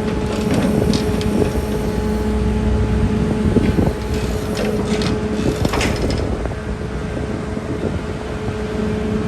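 Liebherr A934C material handler's diesel engine running steadily, with scattered metallic clanks and rattles during the first six seconds.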